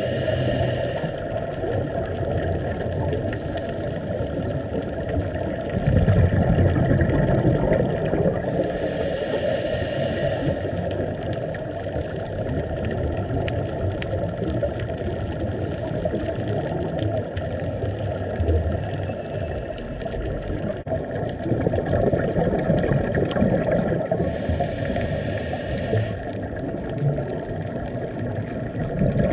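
Muffled underwater noise through a dive camera's housing: a steady low rush with a faint hum. Three brief hisses of a scuba diver's exhaled bubbles come at the start, about nine seconds in and about twenty-four seconds in.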